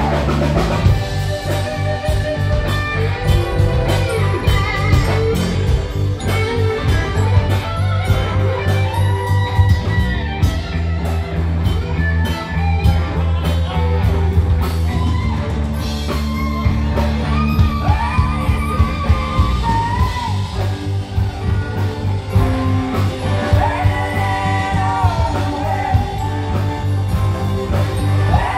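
Live rock band playing: a woman singing over electric bass, electric guitar and a drum kit.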